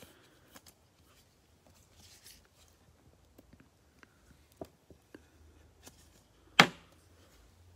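Faint plastic rustling and small ticks as a trading card is slid into a clear plastic sleeve and a card holder by gloved hands, with one sharp click about six and a half seconds in.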